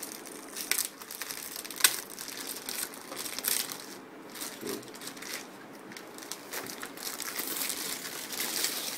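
Thin plastic bag around a new laptop crinkling and rustling as hands pull it open and off. Irregular sharp crackles run through it, the loudest about two seconds in.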